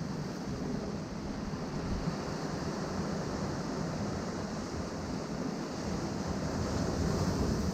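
Ocean surf washing against rocks in a steady rush, swelling a little louder near the end, with wind buffeting the microphone.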